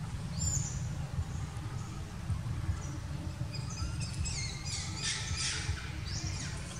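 High-pitched animal chirps and squeaks: one falling chirp about half a second in, then a quick cluster of short falling calls with scratchy rustling about four to five seconds in, over a steady low rumble.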